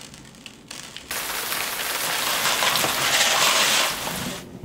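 Foley heavy-rain effect made with Nerds candy: a dense, steady patter that starts about a second in and stops shortly before the end.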